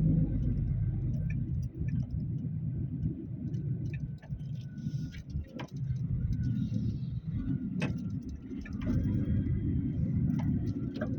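A continuous low rumble, uneven in loudness, with scattered light clicks.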